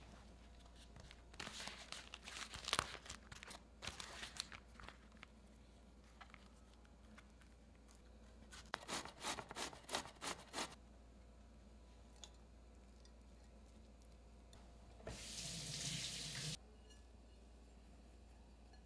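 Rustling and crinkling handling sounds in two spells, then a steady rush of noise for about a second and a half that stops suddenly.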